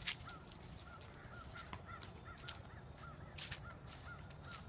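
A bird calling repeatedly outdoors, short arched notes about two or three a second, faint, with scattered light crackles.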